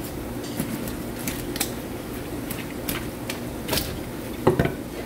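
Knife and a large grouper being handled on a plastic cutting board: scattered light taps and clicks, with two louder thumps about four and a half seconds in, over a steady low hum.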